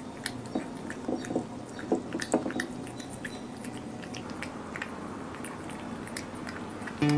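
Cat chewing and biting pieces of raw meat, close up: wet smacking clicks, dense in the first couple of seconds and sparser after.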